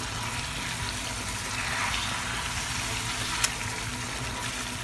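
Fish pieces in a thick tomato-chili masala sizzling steadily in a pan as a perforated steel spatula stirs through them, with one sharp tap of the spatula against the pan about three and a half seconds in.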